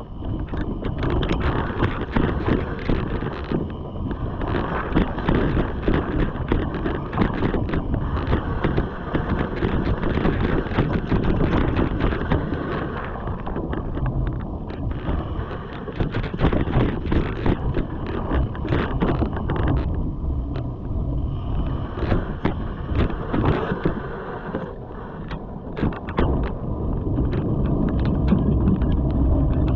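Mountain bike ridden along a leaf-covered dirt trail: tyre noise over leaves and dirt, with frequent clicks and rattles from the bike over bumps, and wind buffeting the microphone. Near the end the low rumble grows louder as the tyres roll onto wooden boardwalk planks.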